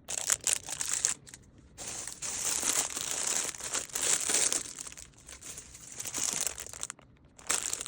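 Packaging crinkling and rustling as it is handled, in irregular stretches with a couple of short pauses.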